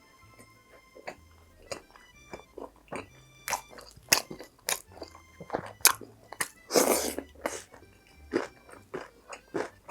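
Close-up crunching and chewing of crispy fried food, with sharp crunches coming irregularly and a loud burst of crunching about seven seconds in, over light background music.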